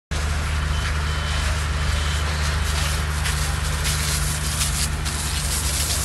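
A fire engine's motor running steadily, with a rushing hiss over it that grows stronger about halfway through.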